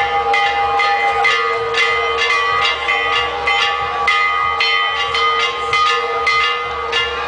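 Church bells ringing in a fast, uneven run of strikes, about three a second, each strike leaving the bells' tones ringing on.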